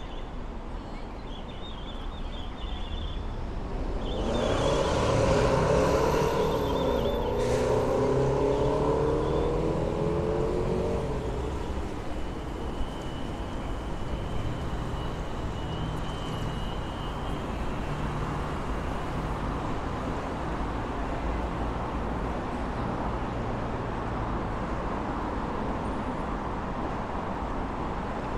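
Steady city street traffic, with one motor vehicle passing close by from about four seconds in, its engine note falling in pitch as it goes past.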